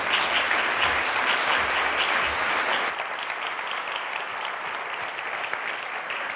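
Audience applauding. The clapping is loudest for about the first three seconds, then carries on a little quieter.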